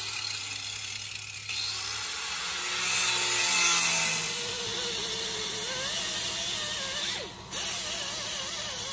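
Hand grinder grinding welded studs off a car's sheet-steel engine bay, the wheel whining and hissing against the metal. It drops out briefly about seven seconds in, then cuts sharply back in.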